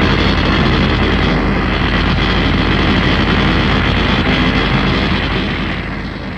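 A long, loud sound effect for the fictional robot monster Mechani-Kong, dense and heavy in the low end, fading out over the last second or so.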